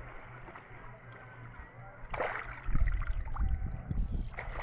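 Tour boat under way: a steady low engine hum with water sloshing, a short rushing splash about two seconds in, and heavier low rumbling from a little later on.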